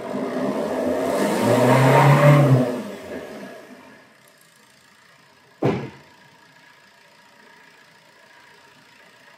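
Common-rail diesel engine revved from idle to wide open throttle, its sound rising to a peak about two seconds in and then falling back to a faint idle by about four seconds. A single brief sharp sound comes about five and a half seconds in.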